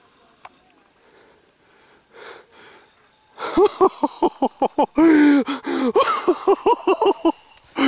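Quiet at first. About three and a half seconds in, a person breaks into rapid, breathy laughter in short pitched bursts, with a longer held whoop about five seconds in, over a hiss.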